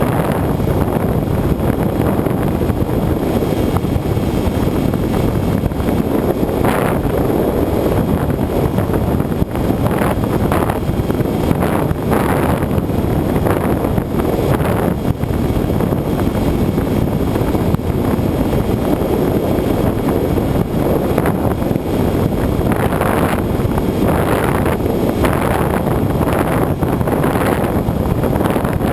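Loud steady wind rush on the onboard camera of a Bixler RC plane in flight, with brief gusts buffeting the microphone throughout.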